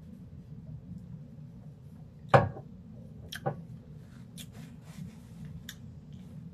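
A drinking glass set down with a loud, sharp knock about two seconds in, then a smaller knock a second later. Light clicks and rustling of a paper napkin follow.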